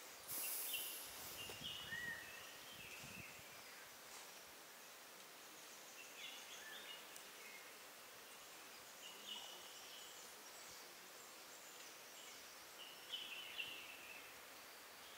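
Faint forest ambience with short bird chirps repeating every few seconds, and a brief rustle about half a second in.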